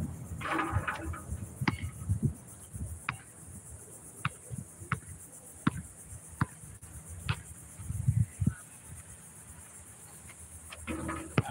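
A steady high buzz of insects, with sharp single knocks of a basketball bouncing on an outdoor concrete court every second or so and a heavier thump about eight seconds in.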